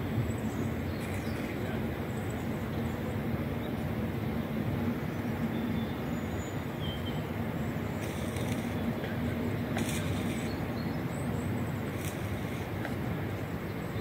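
Narrowboat under way on its hybrid diesel-electric propulsion: a steady low hum over a constant rushing noise.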